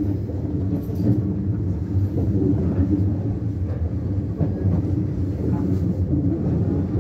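Running noise of a JR West 103 series electric train heard from inside the cab: a steady low rumble of wheels on the track and the train underway.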